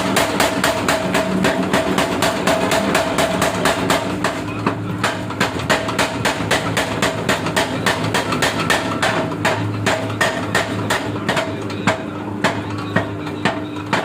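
Hammer blows on the steel of a JCB breaker chisel being forged, struck in a fast, even rhythm of about four to five a second, with a steady mechanical hum underneath.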